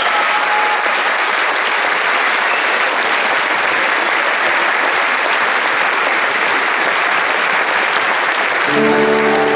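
Audience applauding steadily; near the end, plucked-string music starts underneath the clapping.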